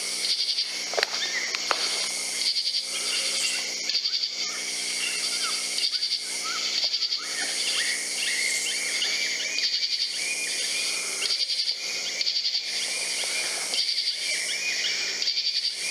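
Summer night insect chorus: high, rhythmic trilling that swells and fades every second or two, with short chirps, over a faint steady low hum.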